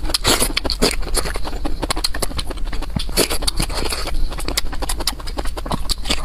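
Close-miked crunching and chewing of broccoli florets: a dense, unbroken run of crisp crackles and snaps.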